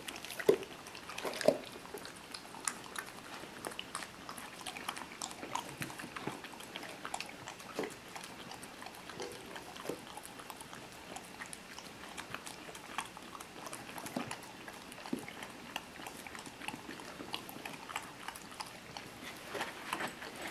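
Dog licking ice cream out of a small plastic cup: a run of small irregular wet clicks and taps as its tongue works the cup.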